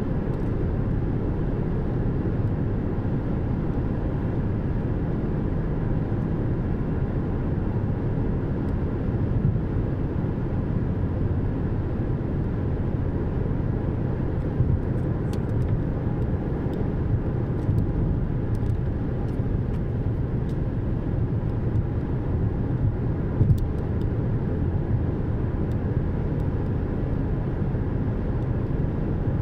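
Steady road and engine noise of a car driving, heard inside the cabin: an even low rumble with a few faint clicks.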